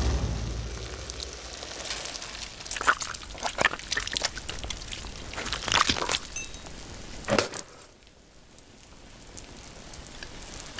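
Film sound effects: a low rumble fading out, then a run of irregular sharp clicks and cracks. The loudest comes at about seven and a half seconds, after which it drops to a faint, slowly rising hiss.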